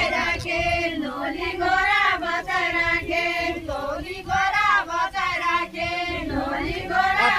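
A group of women singing a deuda song together, the Far-Western Nepali folk song of the deuda circle dance, in repeated phrases broken by short pauses.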